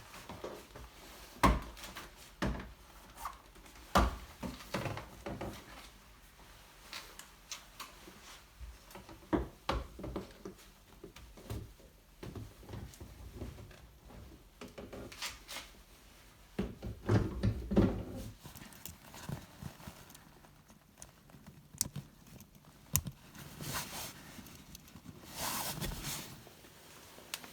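Scattered knocks, clicks and thumps of hands handling and refitting a leather car seat and its parts, with a denser run of rubbing and knocking past the middle and a brief rustle near the end.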